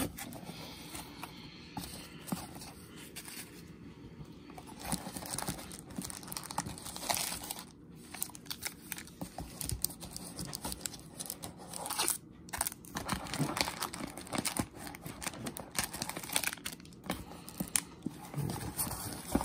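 Foil-wrapped trading card packs and a cardboard box being handled: irregular crinkling and rustling of the pack wrappers with small clicks and scrapes of cardboard.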